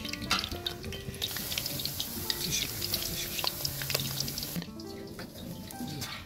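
Spiral-cut potatoes on skewers deep-frying in hot oil in a wok, a dense sizzle with small pops, starting about a second in and dropping away shortly before the end. Soft background music plays underneath.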